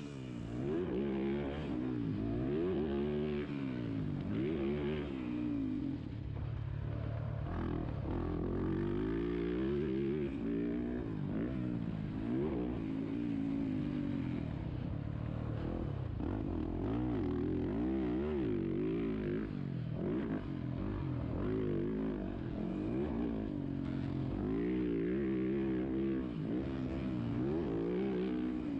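A 2023 Yamaha YZ450F's 450 cc single-cylinder four-stroke engine being ridden hard around a motocross track. The engine revs up and falls back again and again, its pitch rising and dropping every second or two.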